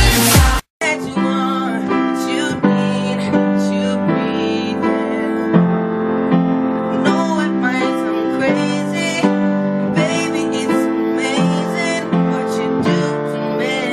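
Upright piano played in sustained chords with a melody over them. Less than a second in, loud pop music cuts off suddenly just before the piano begins.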